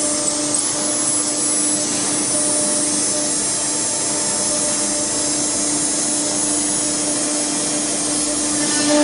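Spindle of an automatic-tool-change CNC router running at speed: a steady whine over a constant hiss.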